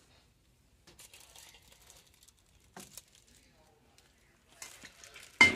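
Plastic wrap on a table lamp's shade crinkling faintly as the lamp is taken off a store shelf and handled, then a sharp knock near the end.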